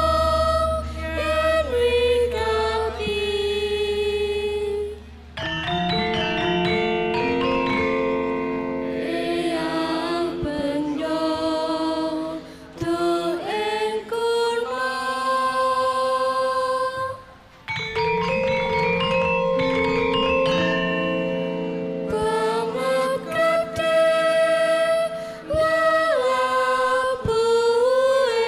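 Javanese gamelan ensemble playing karawitan: bronze metallophones and gongs ring under singers' long held vocal lines that slide between notes. The music eases off briefly a few times before picking up again.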